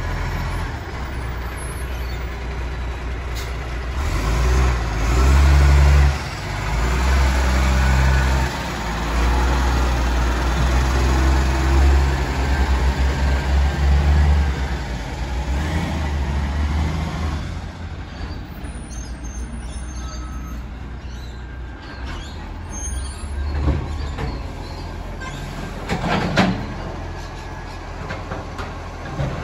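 Side-loader garbage truck's diesel engine running as it passes close by, the rumble swelling and then easing as it moves off down the street. A short sharp burst of noise comes near the end.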